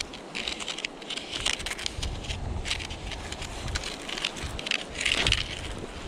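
Plastic pinpointer probe and gloved hand scraping and digging through coarse sand and pebbles: an irregular run of gritty scrapes and small clicks, loudest about five seconds in.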